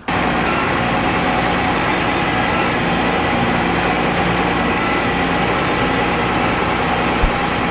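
Large farm diesel engine running steadily at working speed, with one short low thud near the end.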